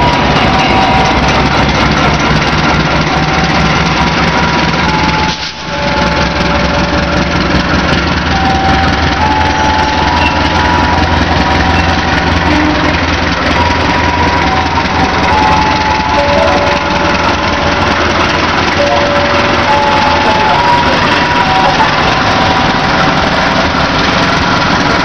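Diesel locomotive hauling a passenger train as it pulls out of the station: a steady engine rumble mixed with the running noise of the coaches passing.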